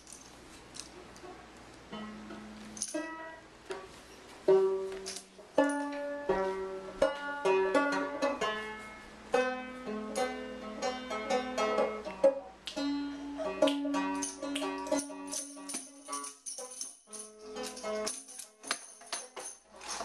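A banjo picked in a running tune, starting about two seconds in. A small hand-held tambourine jingles now and then over it.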